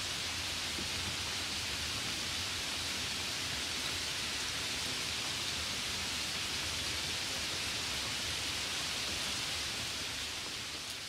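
Steady rain falling, an even hiss that fades out near the end.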